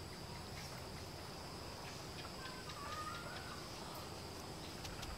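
Steady high-pitched insect drone, with a short wavering bird call about two and a half seconds in and a few faint taps.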